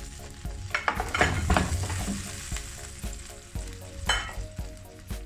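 Lumps of jaggery dropped from a steel bowl into a non-stick pan of heating water, knocking and splashing with a sizzle. The loudest clatter comes about a second in, with one more knock near the end.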